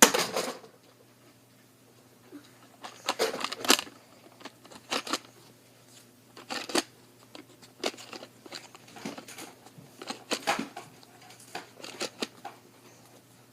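Foam darts being pushed one at a time into a Nerf Elite 25-dart magazine: irregular short plastic clicks and rustles, in small clusters a second or two apart.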